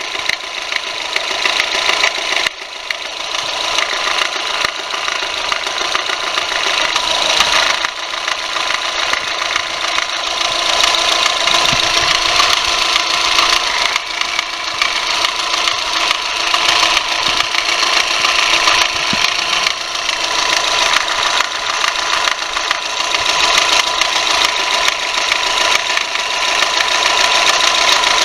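Subaru Legacy BP5's boxer engine running with an abnormal noise that appeared after a timing belt replacement: a steady, busy mechanical noise with a few held tones running through it.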